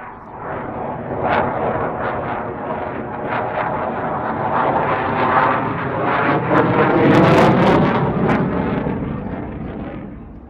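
Saab JAS-39C Gripen's single Volvo RM12 turbofan in a display pass: loud jet noise that swells, peaks about three-quarters of the way through with sharp crackles, then fades as the fighter pulls away.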